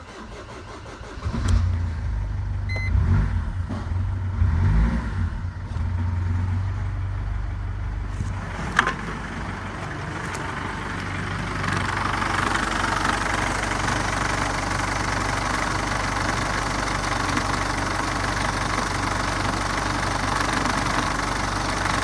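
Mercedes OM611 2.2-litre four-cylinder CDI diesel starting up about a second in, running unevenly for a few seconds and then settling into a steady idle. There is one sharp click a little before halfway. From about halfway the idle is heard from the open engine bay, where it is louder and brighter.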